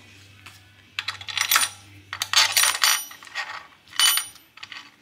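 Small steel parts, bolts and tools, clinking and jingling against each other in a few quick bursts with a bright metallic ring: about a second in, again for nearly a second from about two seconds, and once more near four seconds.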